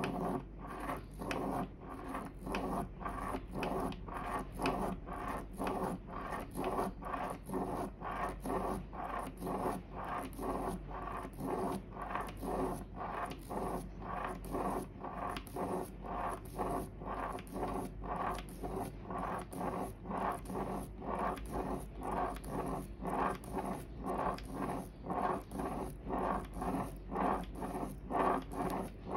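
Plastic Spirograph gear rolling around the toothed ring with a pen scratching over the paper: a rhythmic scratching rub, about two strokes a second.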